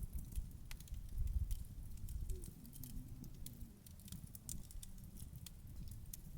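Wood campfire crackling, with scattered sharp pops over a low rumble.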